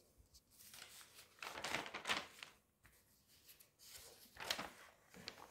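Thin newsprint pages of a supermarket flyer rustling as they are turned, in two soft swishes: one about two seconds in and another near the end.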